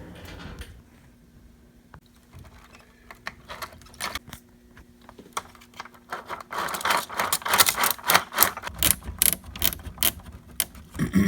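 Small parts of an RC snowmobile being handled as its track is fitted: scattered clicks at first, then a busy run of clicking and rattling from about six and a half seconds in.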